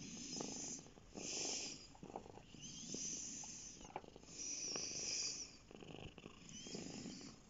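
Cat purring close to the microphone, swelling and fading with each breath, with the swishing rustle of a hand stroking its fur.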